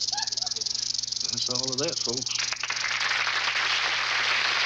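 Southern Pacific rattlesnake shaking its rattle: a steady, fast, hissing buzz that grows louder about halfway through. A couple of brief voice sounds come in the first half.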